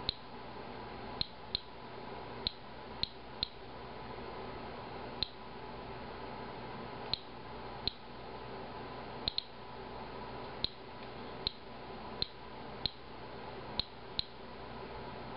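Inspector Alert Geiger counter chirping at random intervals, about one count a second, each short high chirp marking one detected radiation count. The rate comes from a green tea sample that the tester reads as well above background. A faint steady hum runs underneath.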